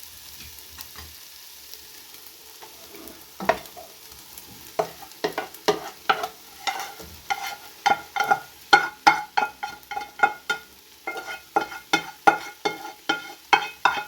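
Food being stirred in a hot pan over a faint sizzle. From about three seconds in, the utensil clinks repeatedly against the pan, about twice a second.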